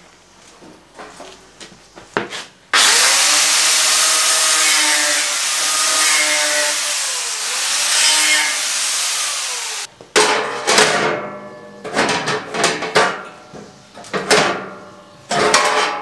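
Angle grinder grinding on the welded steel frame of a Turfco top dresser, starting abruptly about 3 s in and running for about 7 s, its whine dipping in pitch and recovering several times. It stops abruptly, followed by a series of sharp metal knocks and clatters.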